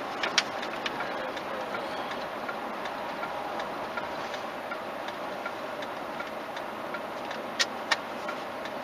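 Steady road and engine noise inside a car's cabin at highway speed, with faint regular ticking and two sharp clicks near the end.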